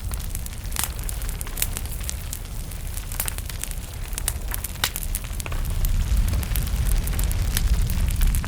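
Small wood fire crackling in a fireplace: irregular sharp pops and snaps over a steady low rumble of the flames, the rumble growing louder about halfway through.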